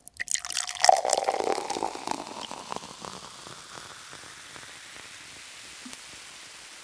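Intro sound effect: a dense flurry of clicks and rushing noise that is loudest in the first couple of seconds, then fades into a soft steady hiss.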